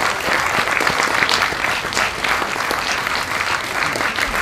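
Theatre audience applauding: many hands clapping, dense and steady.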